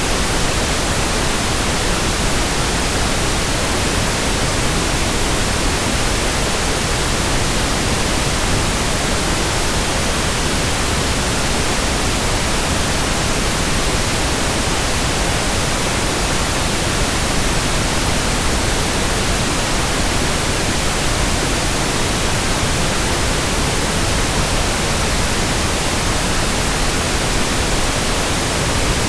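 Synthetic pink noise, a steady even hiss spread across all pitches with no changes.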